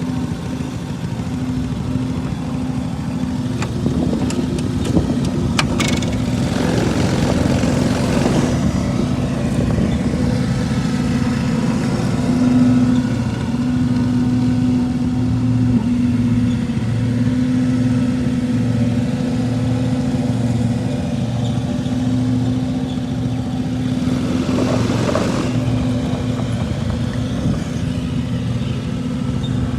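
Riding lawn mower engine running steadily under way, a constant hum. There are a few sharp clicks about five seconds in and brief louder rushes around eight and twenty-five seconds in.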